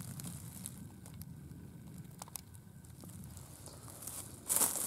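Dry leaf litter and pine needles rustling and crackling, faint at first with a few small clicks, then a louder burst of rustling and crunching near the end.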